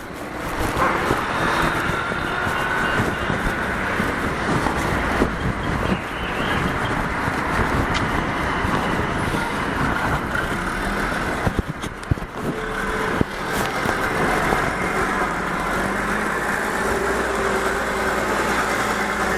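Steady city street traffic: engines and tyres of passing motor vehicles, with a brief lull about twelve seconds in.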